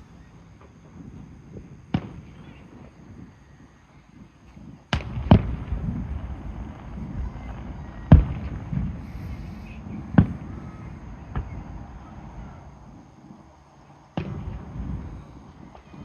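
Aerial firework shells bursting: a series of sharp bangs, with two close together about five seconds in and the loudest near eight and ten seconds. Each bang is followed by a low rumbling echo.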